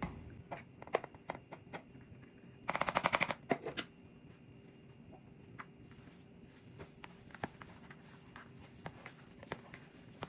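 Cooked rice tipped out of a glass bowl into a plastic bowl of raw ground meat, with a quick rattle of knocks about three seconds in, then hands kneading the meat and rice together with scattered soft clicks.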